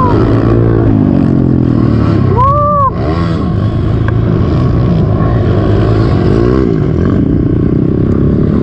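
Honda CRF110F pit bike's small single-cylinder four-stroke engine running hard under race riding, its revs rising and falling with the throttle. A sharp rev up and back down comes about two and a half seconds in, with a brief drop in loudness as the throttle is shut.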